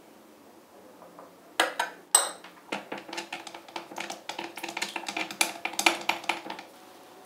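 A metal utensil beating an egg in a glass bowl. A few sharp clinks on the glass come about a second and a half in, then about four seconds of quick clinking and scraping that stops near the end.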